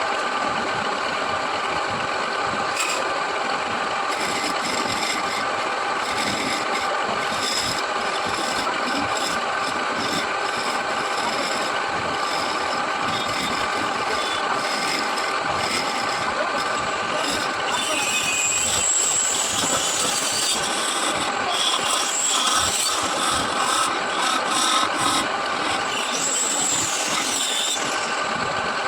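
Wood lathe motor running steadily while a hand tool scrapes and rasps against the spinning wood. The cutting gets harsher and more squealing about two-thirds of the way through.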